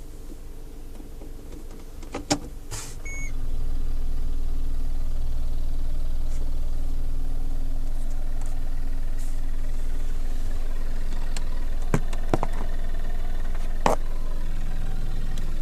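2008 Toyota RAV4 engine starting about three seconds in, after a couple of clicks and a short beep, then idling steadily. A few sharp clicks sound over the idle near the end.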